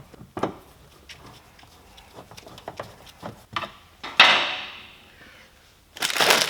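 Small clicks and knocks of tools and plastic door trim being handled while the trim is refitted. A sharper clatter comes about four seconds in, and a louder rustling, crackling noise starts near the end.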